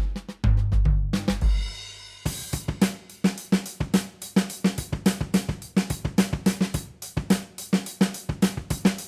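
Sampled acoustic drum kit from the Native Instruments Abbey Road Drum Collection, dry with no compression or EQ. It plays a groove of kick, snare, hi-hat and cymbals. A few low drum hits and a ringing cymbal come first, then about two seconds in the same groove starts again with busy hi-hat strokes, typical of the switch to the next kit.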